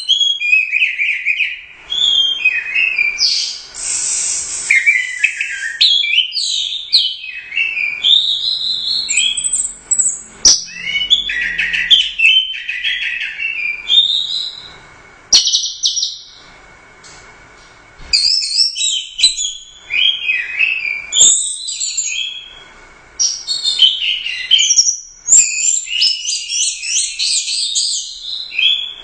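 Orange-headed thrush singing a long, loud, varied song of fast, high-pitched phrases that glide and change, in bursts with short pauses between them.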